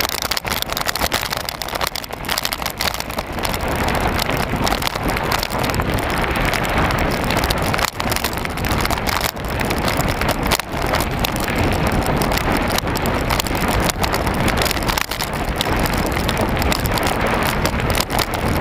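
Wind buffeting an onboard camera on a moving mountain bike, mixed with tyre rumble on a rough farm track and frequent small knocks and rattles from bumps.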